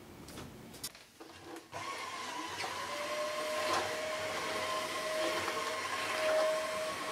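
Cordless stick vacuum cleaner starting after a couple of small clicks. Its motor spins up with a rising whine about two seconds in, then runs steadily with an even whine over a hiss of airflow.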